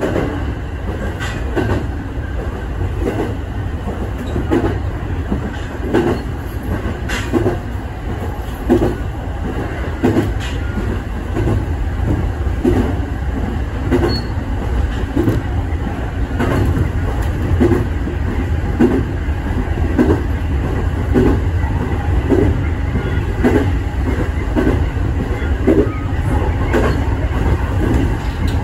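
Electric train running along the track, heard from inside the front car: a steady low rumble with the wheels clicking over rail joints at a regular beat, a little faster than once a second.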